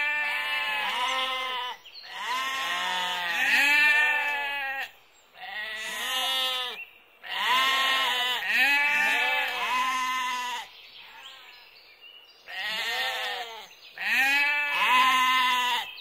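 Several sheep bleating over one another in repeated runs of calls, with short pauses about five and seven seconds in and a longer lull near twelve seconds.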